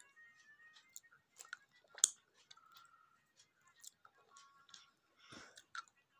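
Pet parrot nibbling and crunching a hard sweet with its beak: an irregular scatter of small sharp clicks and crackles.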